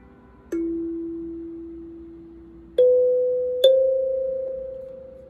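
Kalimba (thumb piano) with metal tines being plucked: three single notes, each ringing out and slowly fading. A lower note comes about half a second in, then two higher notes close together near three seconds, and the last is left to ring.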